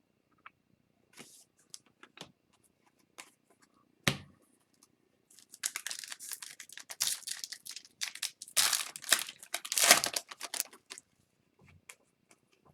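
An Upper Deck Series 2 hockey card pack wrapper being torn open and crinkled. A few light clicks and a sharp knock about four seconds in come before a stretch of dense crinkling that lasts about five seconds.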